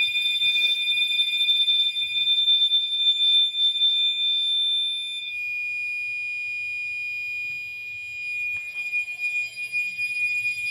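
Two fire alarm horns, a Gentex Commander 3 on continuous 2400 Hz and a Gentex GX91 mini horn, sounding steady high-pitched tones together. The higher of the two tones cuts off about five seconds in, leaving one steady tone.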